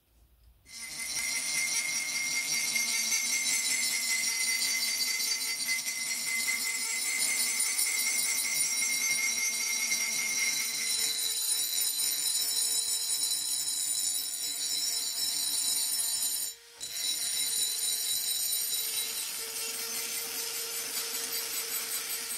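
Handheld rotary tool spinning a small abrasive bit against a cast iron mortar: a steady, high motor whine with a gritty grinding hiss. It cuts out briefly about two-thirds of the way through, and its pitch shifts slightly as the bit moves.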